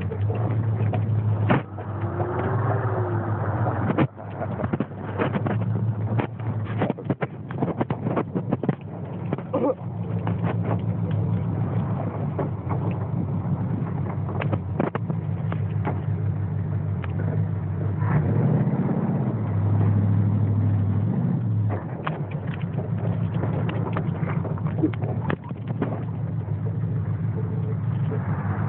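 Off-road four-wheel-drive vehicle's engine running steadily while driving over a rough, muddy track, with frequent knocks and rattles from the bumps. The engine revs up and holds higher for a few seconds past the middle, then settles back.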